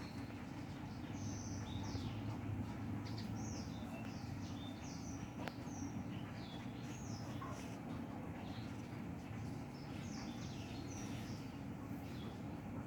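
A quick run of short, high chirps, some gliding up or down, over a steady low hum. The uploader presents the chirping as a strange sound coming from black ants.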